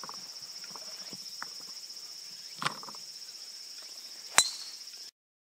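A golf driver striking the ball off the tee: one sharp click with a short ring about four and a half seconds in. Behind it is a steady high insect buzz, and the sound cuts off suddenly half a second after the strike.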